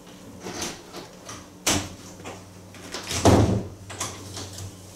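A few knocks, with a sharp one almost two seconds in and a heavier thud a little after three seconds, over a low steady hum.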